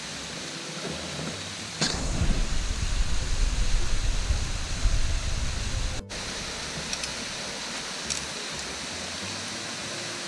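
Steady rush of a waterfall. A louder, wavering low rumble joins it about two seconds in and cuts off suddenly about six seconds in.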